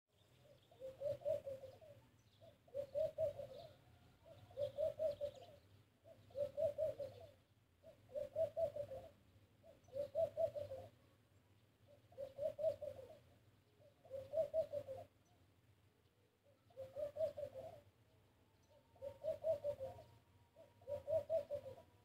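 A dove cooing over and over: about eleven short phrases, one every two seconds or so, each a quick run of soft, low coos.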